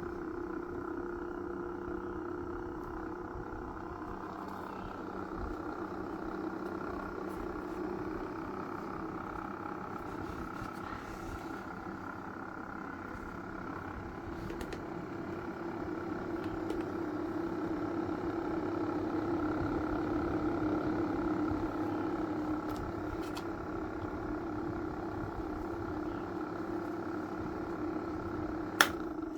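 Small electric motor and fan running steadily with a humming whine, swelling a little partway through. One sharp click near the end.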